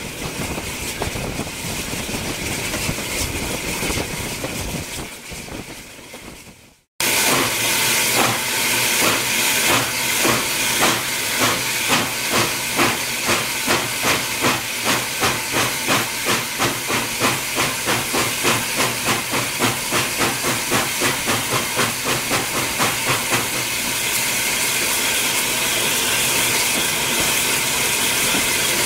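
Steam locomotive working hard: rhythmic exhaust beats that quicken from about two to three a second, then give way to a steady hiss. This follows an abrupt cut, before which a steady noise fades away.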